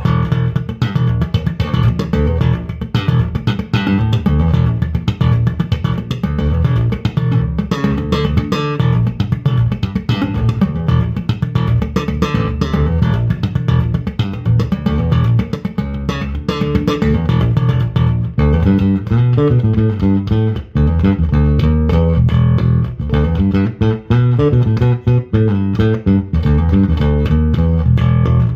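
Electric bass guitar being played: a continuous line of plucked notes with a strong low end, starting sharply after silence.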